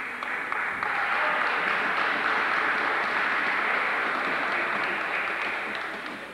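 Spectators applauding, building up over the first second and dying down near the end.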